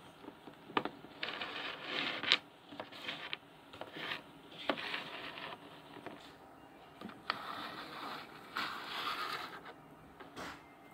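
Small plastic toy figurines being handled and moved about on a wooden tabletop: scattered light taps and knocks mixed with several stretches of scraping and rubbing.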